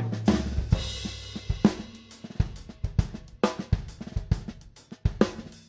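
Drum kit played up to speed: a flammed three-note sticking in eighth-note triplets with the flam on the third note, accenting the swung upbeats. It is played across snare, bass drum and cymbals. The strokes stop for a moment about five seconds in, then start again.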